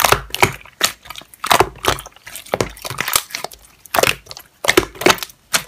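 Slime being squeezed and pressed by hand, giving a quick run of sharp wet pops and crackles, two or three a second at uneven spacing.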